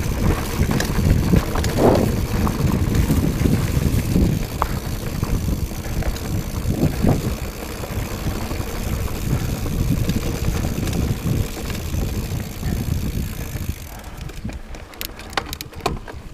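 Mountain bike riding fast down a rough dirt trail: wind buffeting the camera microphone over the rumble and rattle of the tyres and bike on the ground, dying down about two seconds before the end.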